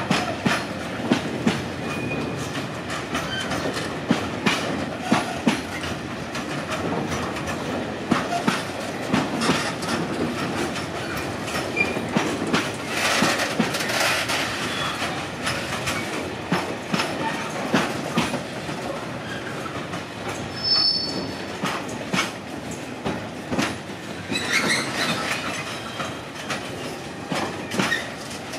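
Freight train of tarpaulin-covered wagons rolling past, its wheels knocking over rail joints in a steady clatter. Brief high wheel squeals come through a few times.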